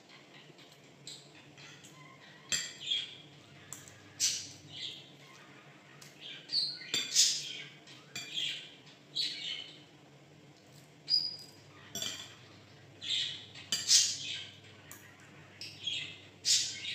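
Pet bird calling in short chirps and squawks that come again and again every second or two, with one brief clear whistle about eleven seconds in.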